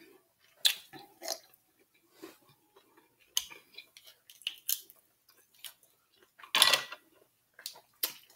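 Close-up mukbang eating sounds: mussel shells being handled and pulled open with the fingers, in scattered short clicks and crackles, with chewing. The loudest is a half-second noise about two-thirds of the way through.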